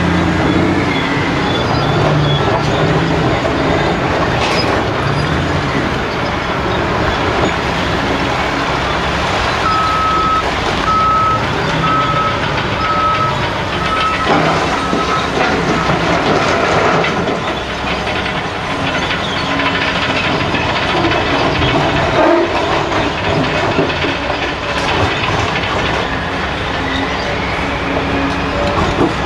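Diesel engines of a Caterpillar 385C excavator and 773E dump trucks running steadily, with broken rock clattering into a truck's steel dump body as the bucket unloads. About ten seconds in, a reversing alarm gives a string of about seven evenly spaced beeps.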